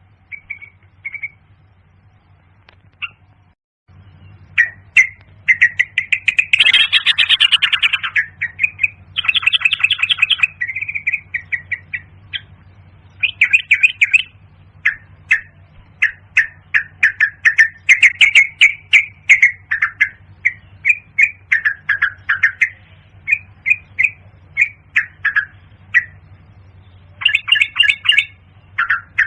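Yellow-vented bulbul calling: quick runs of short chirping notes, sparse in the first few seconds and then almost unbroken, with a louder, harsher burst about seven seconds in. A low steady hum runs underneath from about four seconds in.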